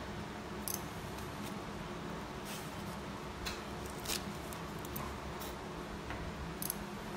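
Steady equipment hum in an operating room, with a handful of short, sharp clicks of metal surgical instruments scattered through it.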